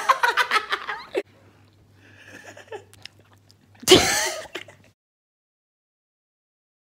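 A young man laughing loudly right up against a phone's microphone, in quick pulsing bursts. A second, louder outburst comes about four seconds in.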